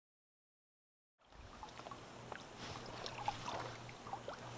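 Dead silence for about the first second, then faint trickling and small splashes of shallow water around hands releasing a smallmouth bass, with scattered light ticks.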